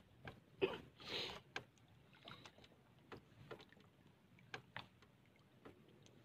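Scattered knocks and clicks from fishing gear being handled aboard a small boat as the fisherman works his line by hand, with a short rushing noise about a second in.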